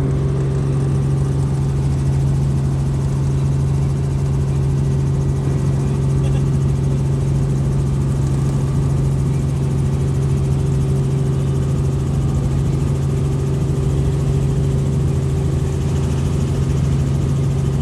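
Robinson R44 Raven II helicopter heard from inside the cabin, its main rotor and six-cylinder Lycoming engine making a steady, unbroken drone with a strong low hum as it lifts off and climbs away from the runway.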